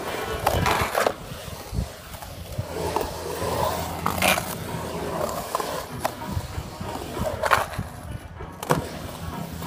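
Skateboard wheels rolling and carving around a concrete bowl, a steady low rumble, broken by several sharp clacks of the board and trucks striking the concrete.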